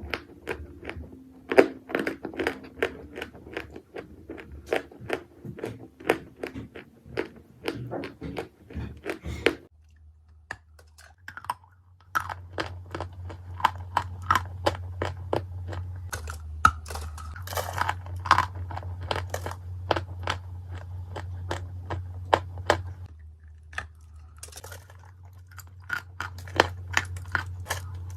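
Turkestan edible clay bitten and chewed close to the microphone: a fast run of dry, sharp crunches that pauses for a couple of seconds about ten seconds in, then resumes.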